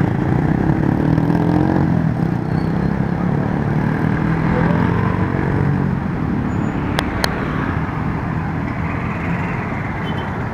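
Road traffic of motor scooters and cars driving across a level crossing: a steady drone of small engines with one revving up about a second in. Two sharp clicks about seven seconds in.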